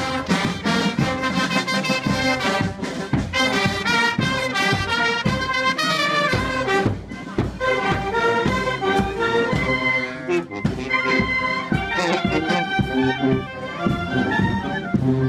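Background music: an instrumental piece with brass instruments playing a melody.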